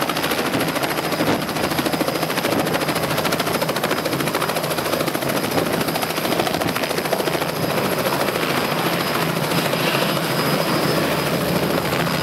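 Robinson helicopter hovering just off the ground, its engine and main rotor running steadily with a fast, even rotor chop.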